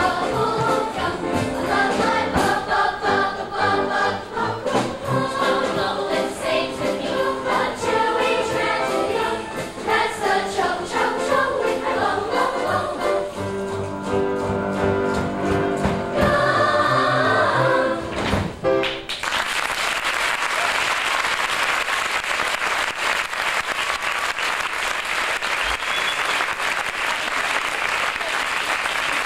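A youth show choir singing; about two-thirds of the way through the song stops, and steady audience applause follows.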